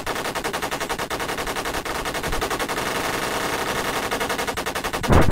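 Machine-gun sound effect: rapid, continuous automatic fire with evenly spaced shots, topped by one louder, deeper bang about five seconds in.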